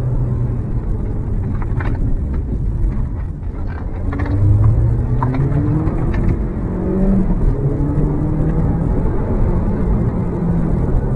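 Audi S3 8L's decatted turbocharged 1.8-litre 20-valve four-cylinder heard from inside the cabin, driven hard on track. The revs climb through roughly five to seven seconds in, then the engine runs steadily under load.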